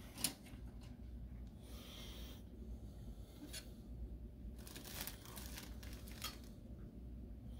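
Faint handling of plastic model-kit parts on a cutting mat: a sharp tap about a quarter second in, then soft rustling and a few light clicks as a chrome-plated sprue is slid across the mat.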